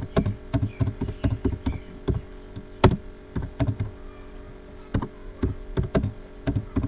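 Computer keyboard being typed on: a run of short key clicks at an uneven pace, with one louder keystroke about three seconds in and a brief lull around four seconds in.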